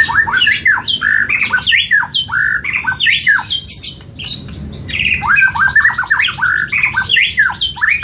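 White-rumped shama (murai batu) singing a loud, fast, varied song of whistled notes and quick sweeping phrases, with a brief lull about four seconds in.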